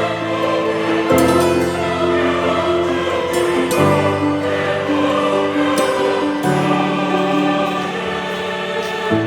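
Background music: held, choir-like chords that change every few seconds.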